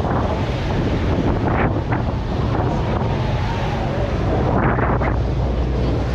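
Wind buffeting the microphone on the deck of a moving boat, over the steady low running of its engine and water churning in its wake.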